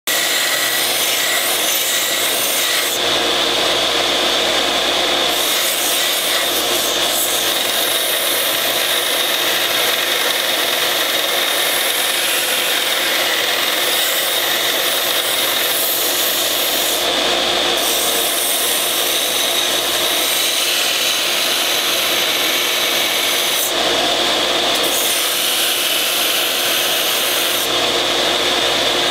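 Central Machinery bench belt sander running with a steady whine while a steel knife blade, forged from a railroad spike, is ground against the moving belt in a shower of sparks, giving a continuous rasping hiss that thins out briefly a few times.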